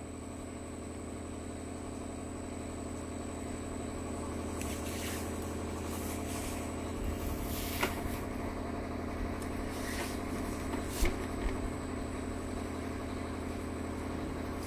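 Steady machine hum with many overtones, growing slightly louder, with a few faint knocks about 8, 10 and 11 seconds in.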